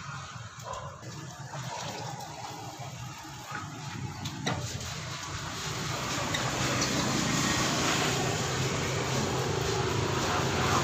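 Iron plate hot roll laminator running after being switched on: a steady low hum with a rushing noise that grows louder about halfway through. A single sharp click comes about four and a half seconds in.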